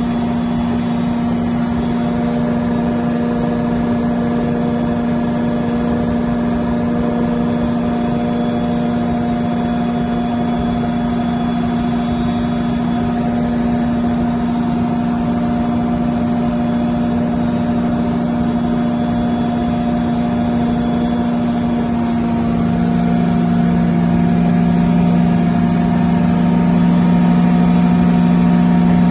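Large Detroit Diesel generator set running steadily, a deep continuous drone with a fixed pitch. About three quarters of the way through a lower tone joins in and it grows a little louder.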